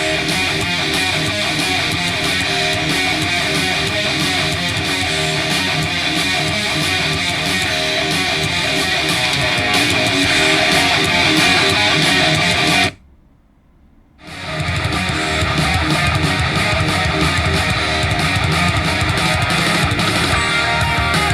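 Guitar-driven rock music played back through a portable Bluetooth speaker in a sound test. The music cuts out for about a second roughly two-thirds of the way through, then starts again.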